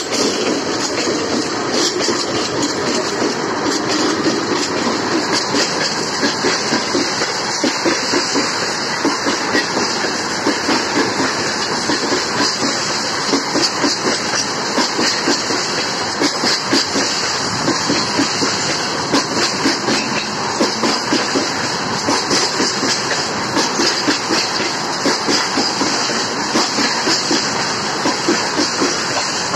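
Freight train of tank wagons passing close by, its wheels clattering rhythmically over the rail joints over a steady loud rumble. The rear section of the VL11M electric locomotive goes by first, then the tank cars.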